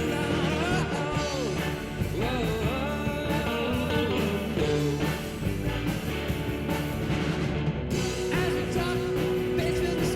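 Background rock music with a sung vocal over guitar and a steady beat.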